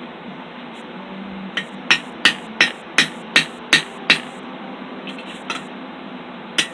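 Hammer blows on a hot steel bar set over a hot cutoff at the anvil, splitting the bar's flattened end. After a pause there is a run of about eight sharp strikes at roughly three a second, then a few lighter knocks and one more strike near the end, over a steady background hiss.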